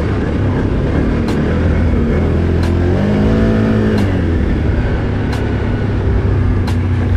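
Quad bike (ATV) engine running steadily while riding a dirt trail, the engine note rising and then falling about three seconds in as the throttle is opened and eased off.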